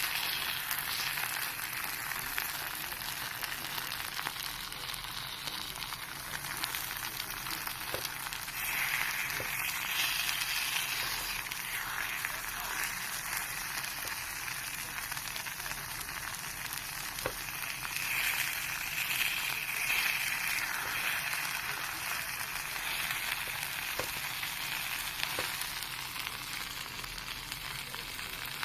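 Takoyaki batter sizzling steadily in a takoyaki pan, with a few faint pops. It swells louder twice for a couple of seconds.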